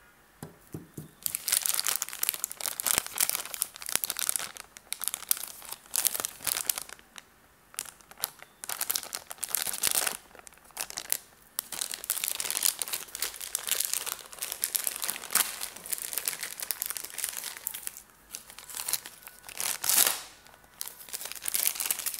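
Clear plastic packaging bag crinkling and rustling in irregular bursts, with short quiet gaps, as a cable is handled and taken out of it.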